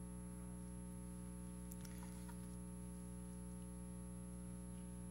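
Steady electrical mains hum in the sound system, with a faint high steady whine above it. A couple of faint clicks come about two seconds in.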